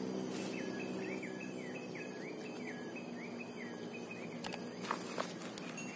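Outdoor insect drone, high and steady, with a bird calling a repeated short note about three times a second for the first three seconds or so. Under it is a low steady hum, and a few soft clicks come near the end.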